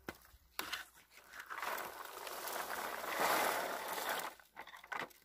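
Freshly picked wild bilberries, mixed with leaves and twigs, pouring from a red plastic comb berry picker into a plastic bucket: a rustling, pattering shower that swells and is loudest about three seconds in. A few knocks of the picker come at the start and near the end.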